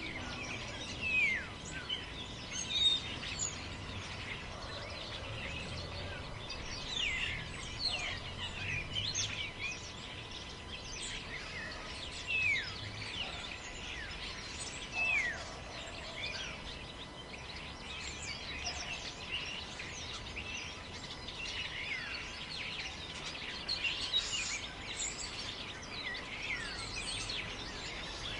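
Forest ambience: steady wind noise with many birds chirping throughout, including short falling calls every few seconds.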